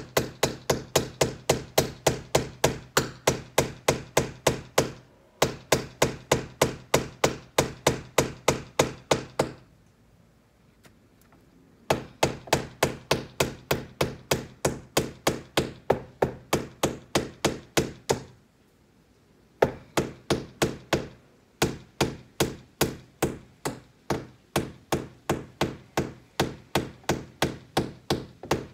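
Hammer driving nails into a window frame: runs of quick, evenly spaced blows, a few a second, each run lasting several seconds, with short pauses between nails.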